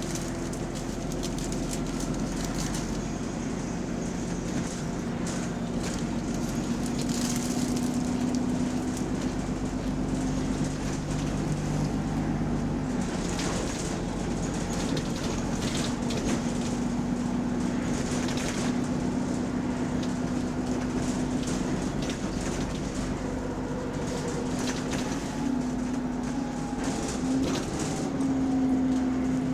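A bus's diesel engine running with a steady drone whose pitch shifts from time to time, with intermittent rattles. The bus has a large exhaust leak.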